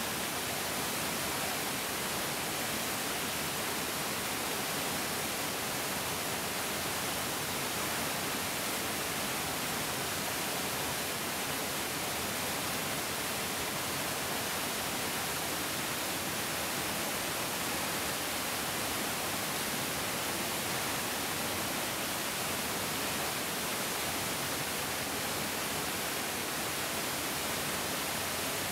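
Mountain stream rushing steadily: a constant, even hiss of flowing water with no breaks.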